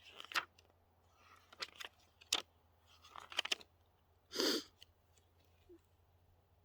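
Handling of paper cards and a guidebook: a few short crinkly rustles and clicks, and one louder half-second rush of noise about four and a half seconds in.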